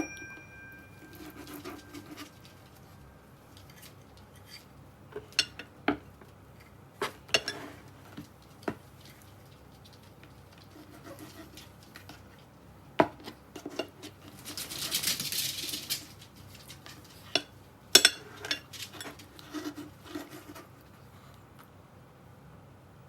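Small dog eating from a dish: irregular clicks and taps of teeth and tongue against the bowl, with a short hissing rustle about halfway through.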